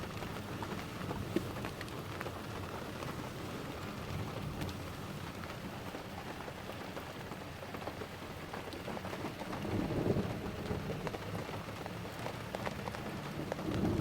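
Steady rain: an even hiss of falling drops with scattered small ticks of drops striking a surface. A low rumble swells briefly about ten seconds in.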